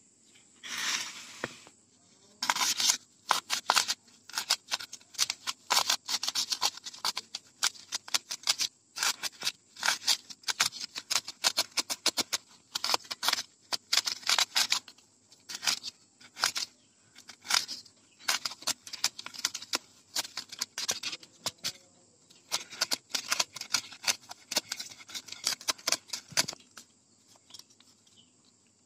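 Polystyrene foam block being gouged and scraped with a thin metal rod to bore a hole: rapid, irregular scratchy strokes in runs with short pauses.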